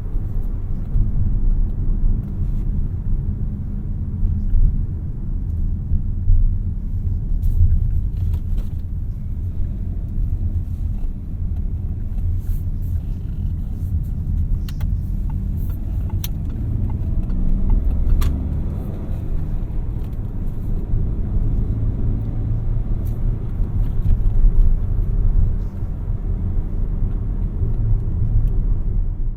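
Peugeot 3008's 1.2-litre three-cylinder turbocharged petrol engine running steadily as the car drives along, with low road and tyre rumble and a few light clicks.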